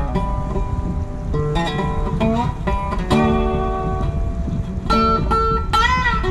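Background music: plucked acoustic guitar, with some notes sliding up and down in pitch.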